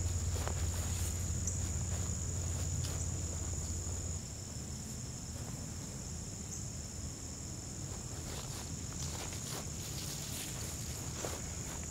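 A steady, high-pitched insect chorus, with scattered clicks and rustles from hand pruning shears cutting goldenrod stems. A low hum stops about four seconds in.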